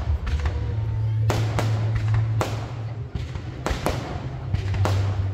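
Fireworks bursting: a series of sharp bangs at irregular intervals, about six over a few seconds, over a steady low hum.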